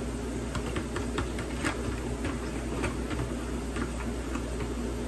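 A metal utensil tapping and scraping against a disposable aluminium foil pan as roasts are basted in beef broth, light irregular clicks a couple of times a second. Under it is the steady rush of a kitchen tap running.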